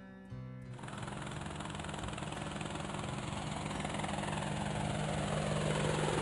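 Cartoon helicopter sound effect: rotor and engine noise growing steadily louder as the helicopter approaches. A few notes of music end about a second in.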